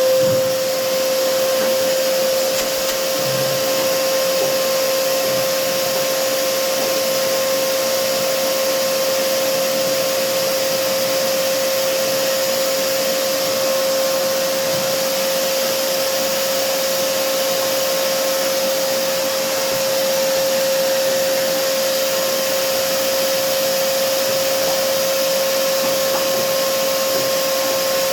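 Vacuum cleaner running steadily at full speed: a steady motor whine over the rush of air.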